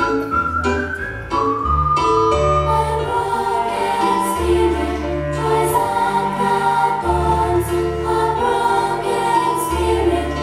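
Recorded Christian children's song: voices singing long held notes in a choir-like blend over a steady bass line. A short run of plucked instrumental notes leads in during the first second or so.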